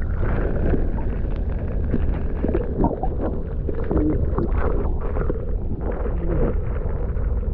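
Muffled low rumble of creek water recorded with the microphone submerged, with scattered small ticks and gurgles.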